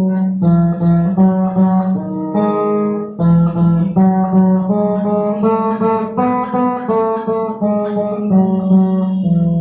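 Acoustic guitar played solo: a melody of short picked notes, changing several times a second, over a low note that keeps ringing beneath.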